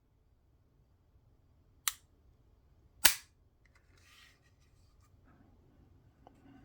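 Two sharp metallic clicks of a 9mm pistol's action, about a second apart, the second louder, as the trigger is dry-fired to test a trigger that still sticks and feels rough.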